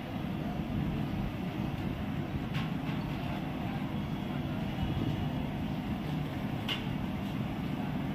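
Steady low rumble of busy street background noise, with a faint click about two and a half seconds in and another near seven seconds.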